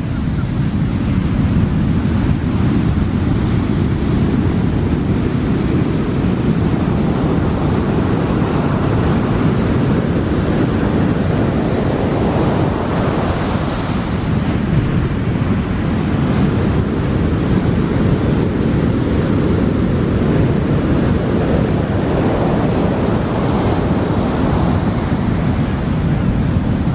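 Steady wash of ocean surf on a beach, with wind buffeting the microphone.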